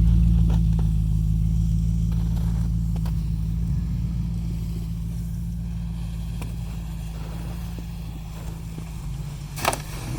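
2006 Nissan Xterra's 4.0-litre V6 running at low, steady revs while crawling off-road, gradually getting quieter. A sharp knock comes near the end.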